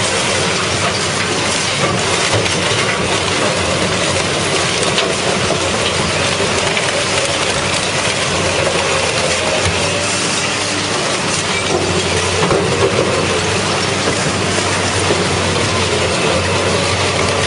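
Industrial car shredder processing scrap cars: a steady, loud din of grinding and clattering metal over a low machine hum, with scattered sharp clanks.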